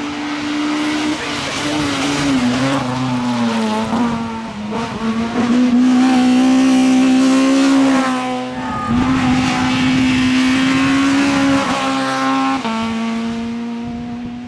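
Suzuki Swift hillclimb race car's engine running hard at high revs as it climbs. Its note holds, drops and climbs again several times.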